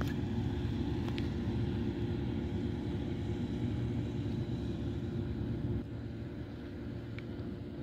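Distant heavy diesel engines of KamAZ trucks and a forage harvester running steadily, a low drone that drops in level about six seconds in.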